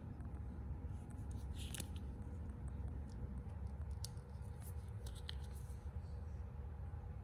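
A few light clicks and short scrapes, scattered and irregular, over a low steady rumble.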